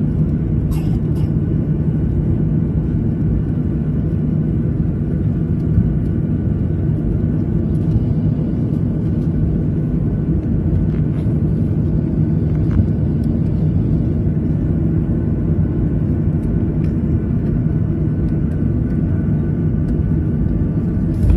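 Steady low rumble of a jet airliner's engines heard from inside the passenger cabin as the plane taxis, with a few faint clicks.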